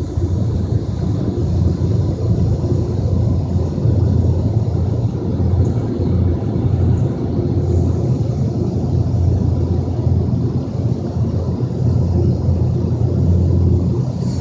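Ryko Voyager II automatic car wash working on the car, heard from inside the cabin: a steady low rumble with a hiss of wash noise over it.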